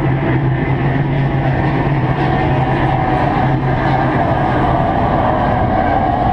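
Powerboat engines droning steadily, a low hum with an even pitch held throughout.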